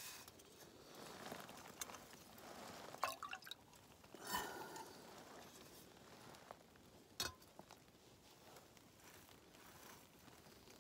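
A few faint clinks and knocks of a metal camping pot being handled and set on a small camping stove, scattered through a quiet stretch.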